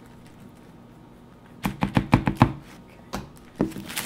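Utensil knocking against a bowl while mashed potatoes are scooped out for a piping bag: a quick run of about six knocks about a second and a half in, then two more near the end.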